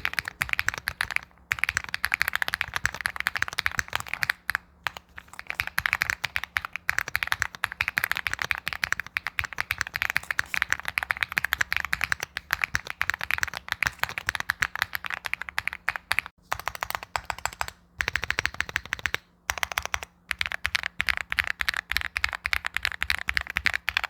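Typing on a Retro 70 mechanical keyboard: a fast, continuous run of key clacks with a few brief pauses. The board is built in its spring-suspension mount, with a slotted FR4 plate and a 1.2 mm single-key-slotted PCB.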